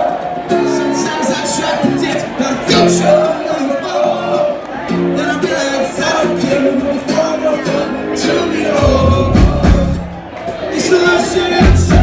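Live band playing a song, with sustained instrument notes throughout; heavy low drum and bass hits come in about nine seconds in and again near the end.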